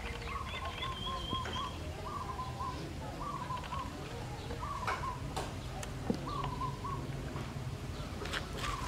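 A bird calling in the background: a short, slightly wavering call repeated about once a second, with a few soft clicks in between.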